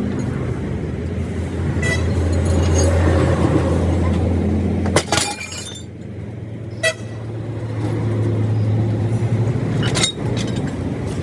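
A vehicle engine runs steadily amid road traffic noise. Sharp metallic clanks ring out about five seconds in, again near seven seconds, and once more near the end.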